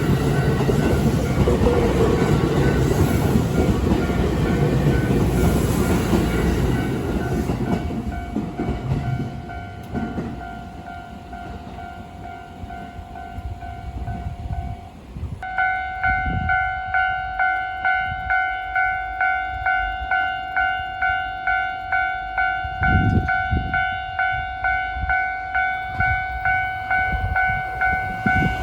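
A train passes the level crossing with a loud wheel-and-track rumble that fades away over the first ten seconds. About halfway through, a Japanese level-crossing warning bell sounds loudly: a repeated electronic 'kan-kan' ding about twice a second.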